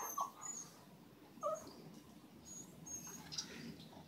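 Rottweiler puppy whining: a short whine at the start and another brief whimper about a second and a half in, over faint high chirps.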